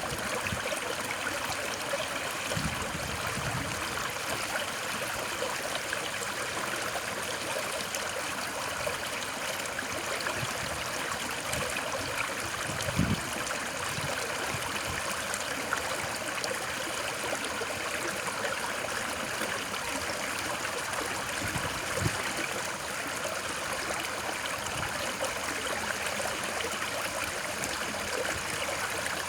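Steady rushing of flowing stream water, an even hiss used as sleep noise, with a few brief low gurgles, the clearest about halfway through.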